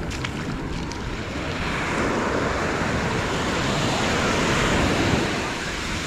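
Small waves breaking and washing up the sand at the water's edge, the wash swelling over a few seconds and easing off near the end.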